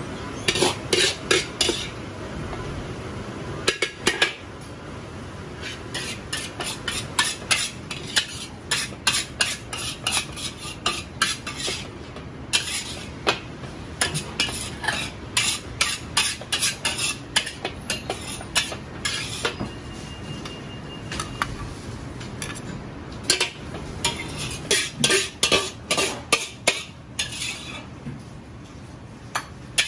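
Metal ladle and wok spatula clanking and scraping against a carbon-steel wok as stir-fried noodles are scooped out, in bursts of rapid strikes, over a steady low rumble.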